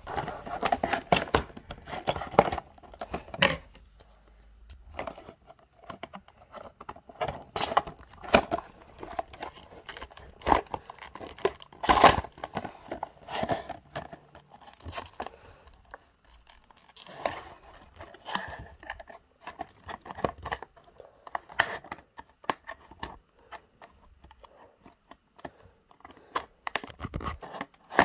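Clear plastic blister packaging crinkling, crackling and clicking as it is handled, in irregular bursts with short pauses.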